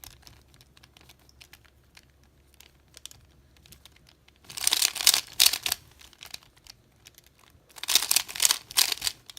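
A 3x3 Rubik's Cube being turned by hand: faint scattered clicks of single turns, then two quick runs of rapid plastic clacking, about four and a half and eight seconds in, as strings of moves are executed.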